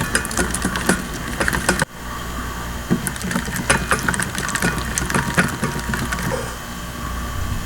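Eggs being beaten in a bowl: rapid, irregular clicking and rattling of the beater against the bowl over a steady low hum, with a sudden short break about two seconds in.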